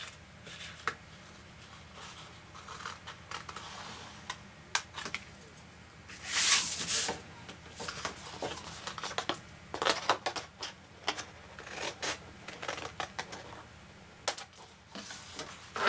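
Scissors snipping short cuts into grey cardstock, a few quick snips at a time, with the card rustling as it is handled and turned; a louder rustle of the card about six seconds in.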